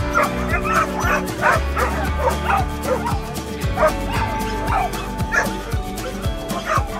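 Dogs barking and yipping again and again, over steady background music.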